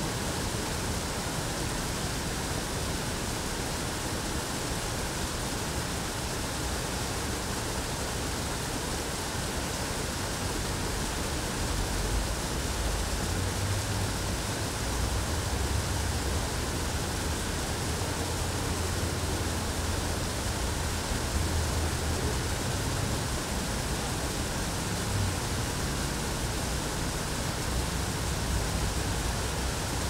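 Steady rush of running water, with a low rumble that comes and goes from about twelve seconds in.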